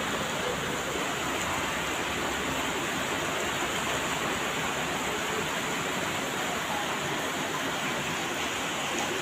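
Heavy rain pouring steadily, an even hiss without a break.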